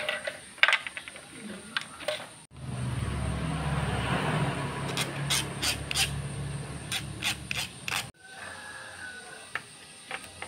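A hand file rasping against the metal shaft of a replacement potentiometer, shortening the shaft so the knob fits. The rasping starts abruptly a couple of seconds in and stops abruptly about eight seconds in, with clicks of small parts being handled before and after.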